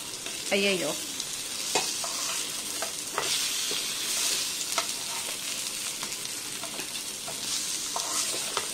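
Small masala-coated sankara fish (red snapper) shallow-frying in a little oil in a nonstick pan, with a steady sizzle. A metal spatula scrapes and taps against the pan now and then as the fish are turned over.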